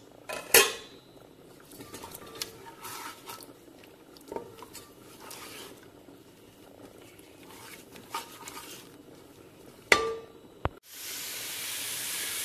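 Wooden spoon stirring and scraping in a metal pot of spice masala, with sharp knocks against the pot about half a second in and again near ten seconds. Near the end, after a brief break, the masala starts sizzling steadily as it fries in hot oil.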